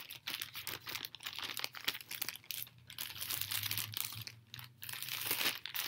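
Plastic DVD and VHS cases being handled and shuffled: a dense run of crinkles and small clicks.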